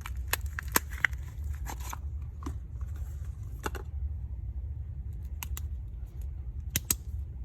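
Hands handling soap packaging: plastic wrapping crinkling and tearing with quick clicks for the first two seconds, then a few scattered taps and clicks. A steady low hum runs underneath.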